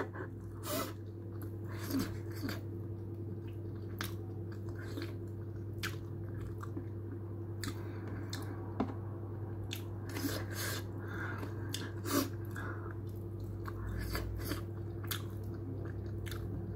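Close chewing of chicken shawarma eaten by hand: irregular wet mouth clicks and smacks, a few louder ones scattered through, over a steady low hum.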